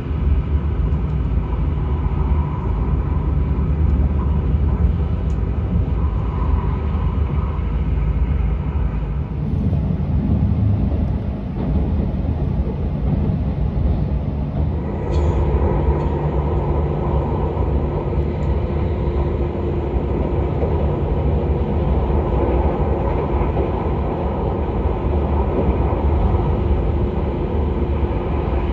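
Steady running noise of a passenger train heard from inside the carriage: a low rumble of wheels on rails under an even hum. About fifteen seconds in the sound shifts and a steady hum becomes more prominent.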